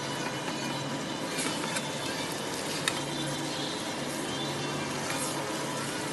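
Fried noodles sizzling in a frying pan while a spatula stirs and turns them, with a few sharp clicks of the spatula against the pan. A low steady hum runs underneath.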